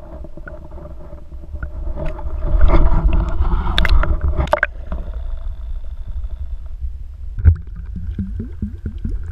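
Muffled underwater river sound picked up by a GoPro in its waterproof housing: a deep rumble and gurgling, with sharp knocks about four seconds in and again about seven and a half seconds in.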